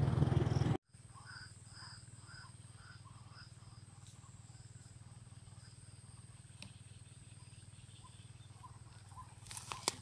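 A loud rushing noise cuts off abruptly under a second in. Then come white-breasted waterhen calls played through a small loudspeaker as a lure: a run of short repeated calls, about two a second, that trail off, over a thin steady high tone. A few sharp clicks come near the end.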